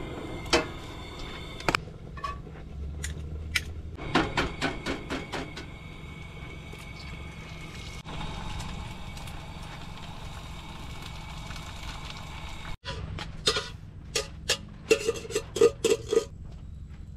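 Cooking clatter at a two-burner propane camp stove: scattered taps and clinks of utensils against a skillet and pot while eggs are fried, with a quick run of taps about four seconds in and another cluster of clinks near the end.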